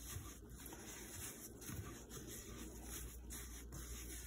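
Faint rustling and scraping of dry breadcrumbs and grated Parmesan being mixed by a gloved hand in a metal pan, over a steady background hiss.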